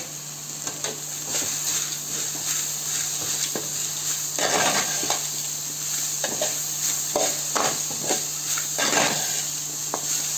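Onions and spinach frying with a steady sizzle in a metal pan while a metal spoon stirs them, scraping the pan in a handful of strokes.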